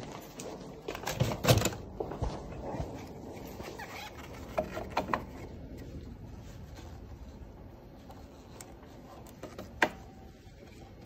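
Handling noises from gloved hands: plastic wrap crinkling with a run of clicks and knocks in the first few seconds, a few more clicks around four to five seconds in, and one sharp click near the end as a lab plate instrument is worked.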